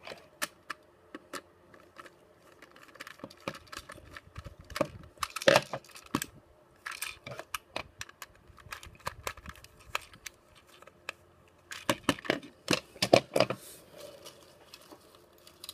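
Screwdriver working the screw of a plastic Plarail toy train's battery cover: irregular small clicks and scrapes of metal on plastic. There are busier clusters of plastic clicking and clatter about five seconds in and again about twelve seconds in, as the cover with its wheel unit comes off and is set down.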